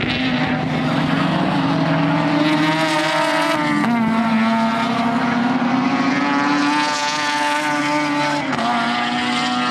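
Two Mazda RX-7 race cars' 13B rotary engines screaming at high revs. The engine pitch drops abruptly twice, about four seconds in and again near the end.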